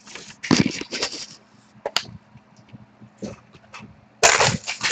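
Handling noises at a table: bursts of rustling and clatter, loudest about half a second in and near the end, with a few sharp clicks between them, over a faint steady electrical hum.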